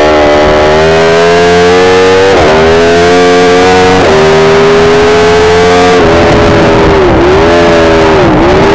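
Aprilia RSV4 V4 sportbike engine under hard acceleration. Its pitch climbs and drops sharply twice as it shifts up, then eases off around six seconds in with two brief dips in pitch as it slows for a corner.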